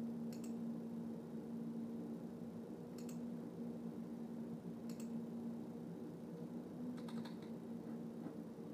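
Steady low electrical or ventilation hum of the room, with a few faint sharp clicks roughly two seconds apart and a short cluster of clicks near the end.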